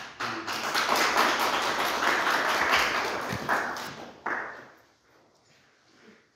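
Audience applauding: a dense patter of many hands clapping that dies away after about four and a half seconds.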